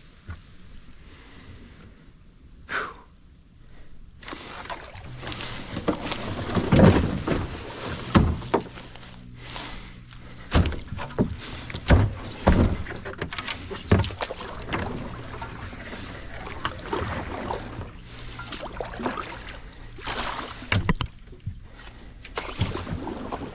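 Kayak being paddled through swamp water: irregular paddle splashes and sharp knocks against the hull, at uneven intervals.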